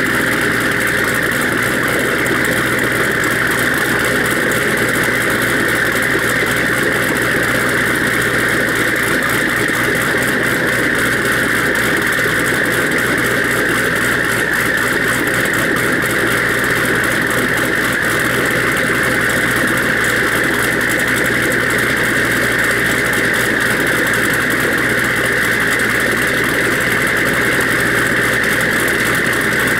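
Twin-turbocharged, cammed 6.2-litre LS3 V8 of a Pontiac G8 GXP idling steadily through a custom stainless exhaust with quad tips.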